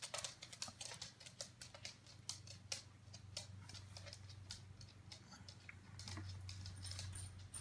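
Faint, irregular clicking and scratchy handling noises from a hand working a suitcase record player, over a low steady hum.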